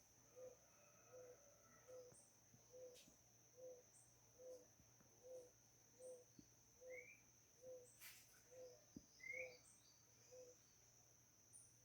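Faint wild night-time-style chorus: an insect's steady high trill runs throughout, while an animal gives a low, short hooting note over and over, about three every two seconds, stopping near the end. A bird chirps briefly twice in the second half.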